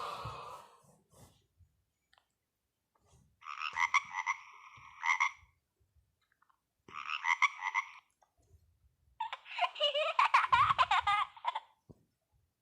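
Nokia 1600 mobile phone playing a ringtone: three short bursts of rapidly pulsing tones with short gaps between them, the third the longest.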